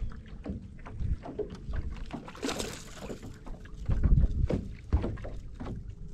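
A hooked bass splashing at the surface and being swung out of the water on the line, loudest about four seconds in, among scattered knocks and water noise around the boat.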